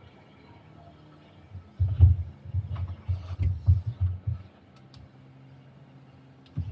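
Muffled low thumps with light clicks from interior trim and wiring being handled, starting about two seconds in and lasting a couple of seconds.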